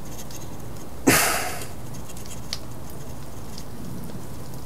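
Hands working a wooden Langstroth frame of brood comb on a workbench. There is one short scraping rustle about a second in and a few faint clicks later, over a steady background hum.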